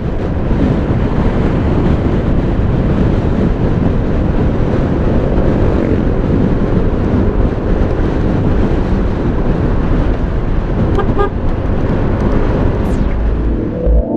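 Steady road and wind noise from a motorcycle ride, with heavy wind rumble on the microphone.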